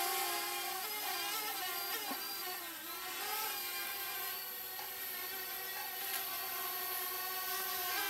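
Parrot Bebop quadcopter's propellers whirring as it hovers, a steady buzzing whine whose pitch wavers and dips briefly about two and a half seconds in.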